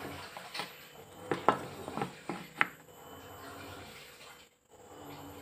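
A handful of sharp taps and clicks, loudest about one and a half and two and a half seconds in, from a steel rule, a small block of wood and a carpenter's pencil being handled on a tabletop during marking out.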